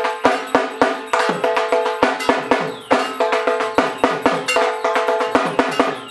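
Dhak, the large Bengali barrel drum, played with sticks in a fast, unbroken rhythm of sharp strokes, along with a ringing metallic clang.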